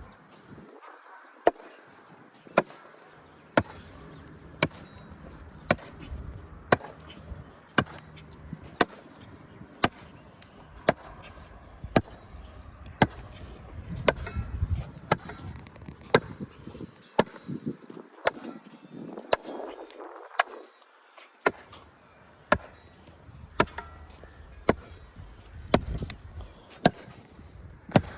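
Sharp knocks repeating steadily about once a second, like strikes of a tool on a hard surface.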